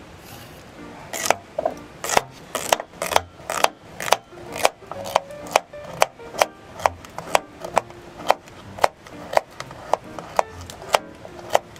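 Kitchen knife slicing and dicing a carrot on a wooden cutting board: sharp, regular chops about two a second, starting about a second in.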